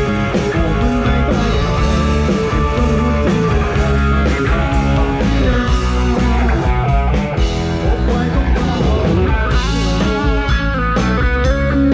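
Amplified live rock band playing through a PA system during a sound check: heavy bass under electric guitar, with a lead guitar bending notes from about two-thirds of the way in.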